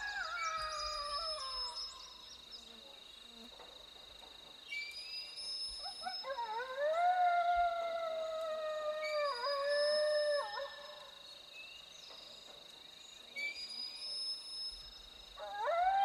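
Long, drawn-out coyote howls, one voice at a time: one trails off just after the start, a long one in the middle rises and then slowly falls with two short breaks near its end, and another begins near the end.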